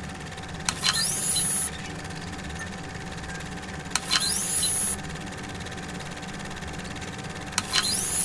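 Synthesized intro sound effects: a low steady electronic hum, broken three times, about three and a half seconds apart, by a click and a bright electronic swoosh with rising whistles, each lasting about a second.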